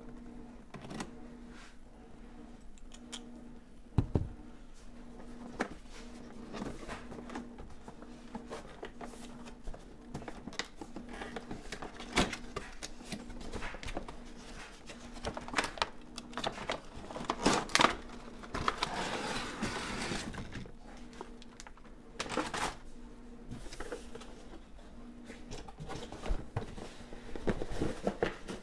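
Cardboard retail box being handled and opened: scattered taps, knocks and rustles as the outer sleeve comes off and the plastic inner tray is set down, with a sharp knock about four seconds in and a longer rustling scrape about two-thirds through. A faint steady hum runs underneath.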